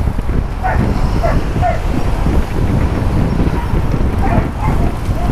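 Wind rumbling on a helmet-mounted camera's microphone while cycling. Short, high-pitched calls or squeaks come in small groups over it, about half a second in, at about a second and a half, and near the end.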